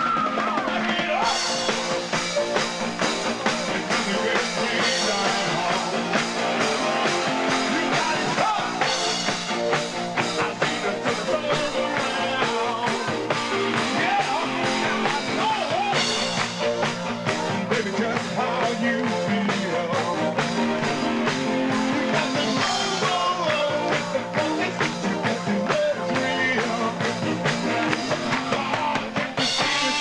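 Live dance band playing an upbeat rock-and-roll number: a steady drum beat, keyboards and a male singer.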